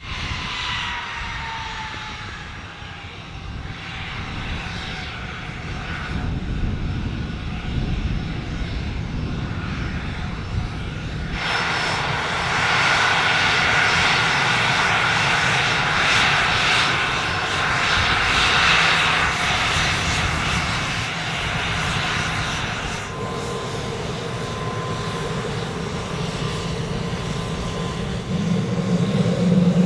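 Gulfstream business jet's turbofan engines running as it taxis: a whine falls in pitch over the first few seconds, and a louder jet rush sets in about a third of the way through. Later a steadier engine hum with a lower drone grows louder near the end.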